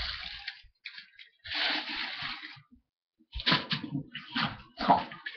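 Heavy, wet breaths blown out through a mouth crammed with marshmallows, in several bursts. From about halfway in they come with muffled, garbled vocal sounds, as of someone trying to speak with a stuffed mouth.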